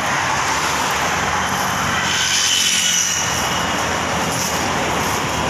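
Steady road traffic noise on a street, swelling slightly about halfway through as a vehicle passes.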